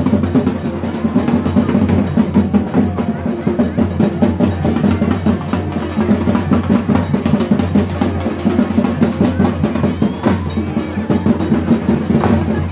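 Drums played in a fast, steady, rolling beat.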